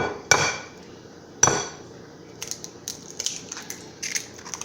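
Eggs being cracked against the rim of a bowl: three sharp knocks with a brief ring, the last about a second and a half in, followed by lighter clicks.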